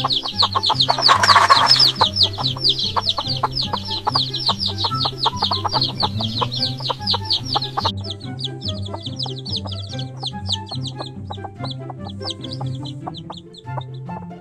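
Chicks peeping rapidly and continuously: many short, high, falling chirps overlapping, with a brief harsh burst about a second in. The peeping drops away abruptly about eight seconds in and carries on softer, over background music with a steady, repeating bass line.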